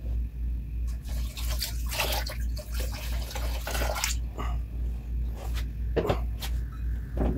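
Distilled water poured from a plastic cup over the face of a 14-inch telescope mirror, splashing off it into a plastic tub for about three seconds, followed by two short knocks near the end.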